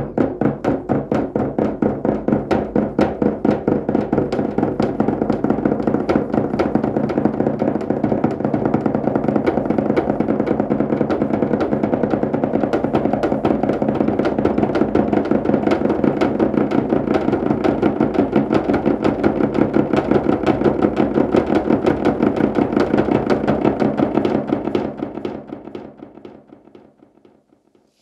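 Fast, even drumbeat over a ringing low tone, fading out over the last few seconds.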